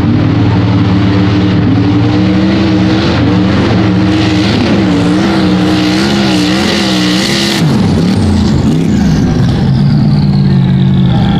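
A mud bog truck's high-horsepower engine revs hard as it runs through the mud pit. The pitch climbs and then rises and falls several times over a hiss of spraying mud and water. The sound cuts off suddenly past halfway, and the engine is then heard running steadily with a high whine that falls slowly in pitch.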